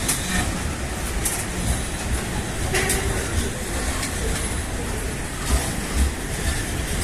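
Loaded freight wagons rolling past: a steady rumble with irregular clatter and knocks from the wheels on the rails.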